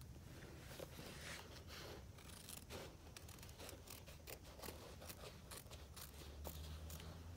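Double-curved appliqué scissors trimming appliqué fabric: a run of faint, quick snips.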